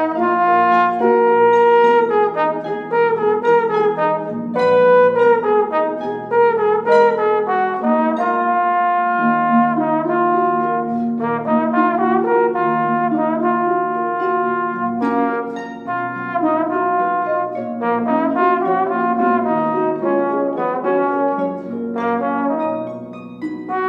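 Trombone and concert harp playing chamber music together: the trombone holds sustained notes while the harp plucks a running line of short notes beneath and around it.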